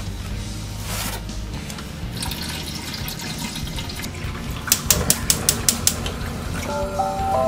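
Water running briefly, followed by a gas hob's igniter clicking rapidly about seven times as the burner lights under the frying pan.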